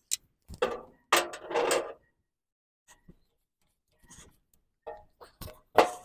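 Clicks, scrapes and rattles of hands working a tractor's ignition coil and its wiring loose from the engine, with a longer scraping stretch about a second in and a sharp knock near the end.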